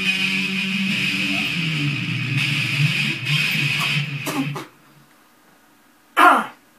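Electric guitar through a Marshall amp playing an E-minor lead jam that cuts off abruptly about two-thirds of the way through. Near the end comes a single loud, short sweep falling steeply in pitch.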